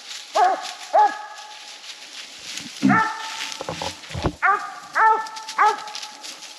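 Coonhounds barking treed at a tree: about six short, sharp chop barks, each rising and falling in pitch, spaced irregularly.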